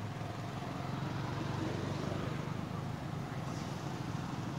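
A motor vehicle engine running, a steady low drone that swells a little near the middle.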